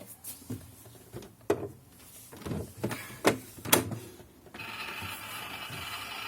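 ELC toy microwave handled with a few clicks and knocks, then about four and a half seconds in its steady electronic running hum starts as the toy is cooking.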